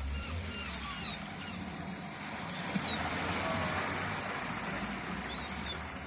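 Sea surf washing on the beach as a steady rushing hiss, with about three short, high bird calls, likely gulls, scattered through it.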